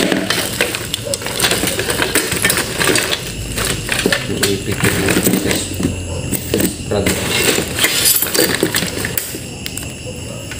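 Repeated short clicks and clinks of small hard objects, with a voice faintly in the background.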